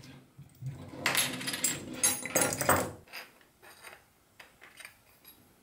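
Steel gear puller and lathe spindle handled on a workbench: a couple of seconds of metal clattering and scraping as the puller is worked off the spindle, then a few light clicks as the parts are handled.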